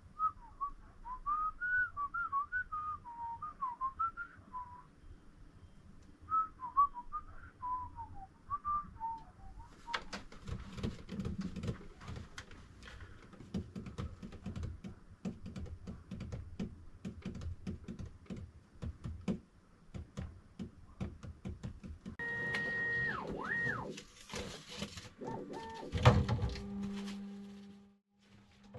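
A person whistling a short wandering tune for about ten seconds, then clicking and knocking as parts of a 3D printer are handled. Later comes a steady electronic tone that dips once, then a loud thump, and near the end a low steady hum starts up.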